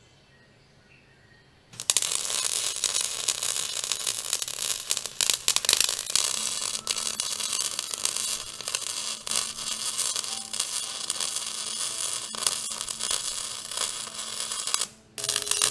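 Wire-feed welder arc crackling and sizzling as a weld is run on the steel bucket. It starts suddenly about two seconds in, runs steadily, and breaks off briefly near the end before striking again.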